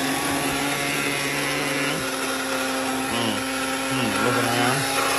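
Electric blade coffee grinder running steadily as it grinds coffee beans, its motor pitch dipping briefly a couple of times past the middle.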